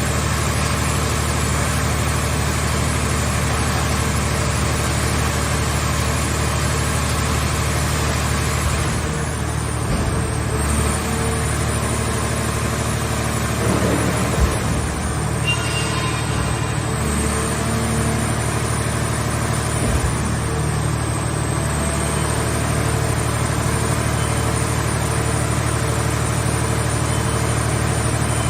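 Engine of a scrap car shell baler running steadily under a low hum, with a few short clunks.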